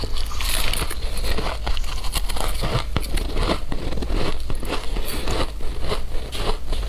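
Shaved ice being chewed close to the microphone: a dense, continuous run of fine crackling crunches.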